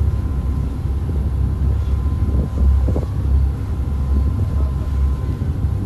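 Steady low rumble of the Emerald 6 catamaran ferry's engines under way, heard from inside the passenger cabin, with a faint steady whine above it.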